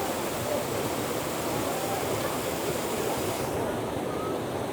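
Waterfall water rushing steadily; the high hiss thins out about three and a half seconds in.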